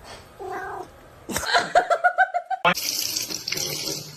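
A quick run of short pitched vocal pulses, then, from about two-thirds of the way in, water running from a tap with a steady hiss.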